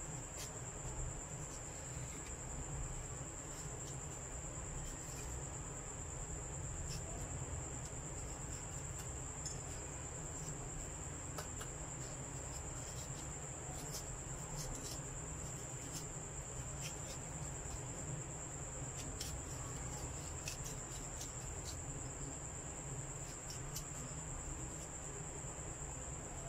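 Soft scraping and occasional faint clicks of a small kitchen knife twisted inside a peeled apple to cut out the core. Under it runs a steady, high-pitched, cricket-like whine and a low background hum.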